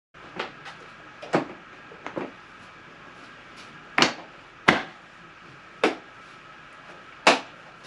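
Tools and metal parts being handled: short, sharp knocks and clinks about once a second, over a faint steady hum.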